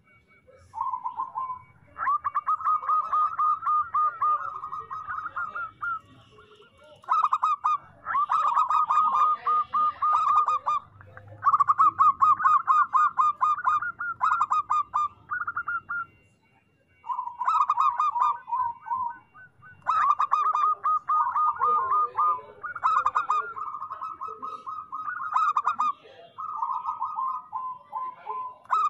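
Zebra dove (perkutut) singing its rapid, staccato cooing song in repeated phrases of a few seconds each, with short pauses between them.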